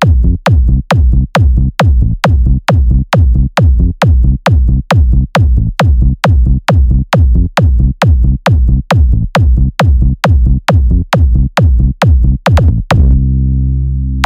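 Electronic bass test from a sound-check track: a deep bass beat repeating about twice a second, each hit with a sharp click on top. About 13 seconds in the beat stops and a held low bass tone sounds, slowly fading.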